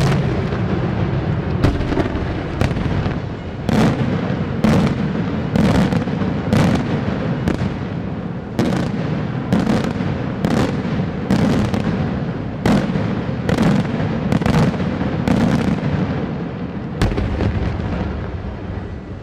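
Daytime fireworks display: aerial shells bursting in loud bangs about once a second, over a continuous rumble and crackle. The bangs thin out near the end, with a last one about 17 seconds in.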